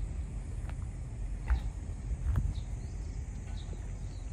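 Outdoor ambience: a steady low rumble on the microphone, a few soft knocks about a second apart, and faint short chirps repeating throughout over a steady high hiss.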